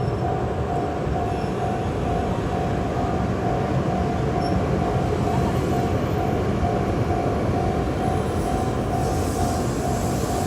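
Level-crossing warning bell ringing in a steady repeating tone, about two rings a second, over the continuous rumble of the N700S Shinkansen test train J0 rolling over the crossing.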